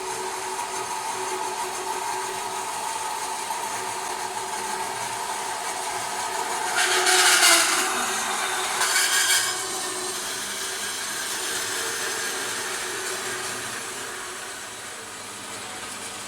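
Forestwest 4.5-inch horizontal metal-cutting bandsaw running steadily with its blade cutting through aluminium at the fastest speed setting. The cut gets louder and harsher twice, about seven and nine seconds in.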